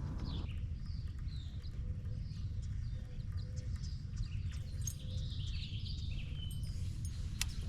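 Birds chirping in many short, quick calls over a steady low background rumble, with a single sharp click near the end.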